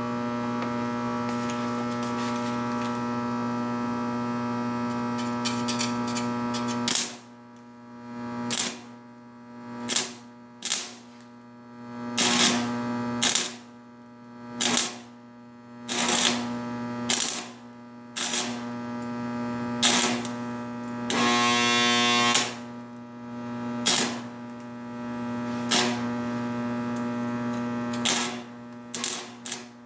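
Stick (arc) welder arcing on a stainless steel exhaust pipe: a steady electric buzz for about seven seconds. Then the arc is struck and broken again and again in short bursts of about a second, one every second or two, as the holes are filled in small stitches.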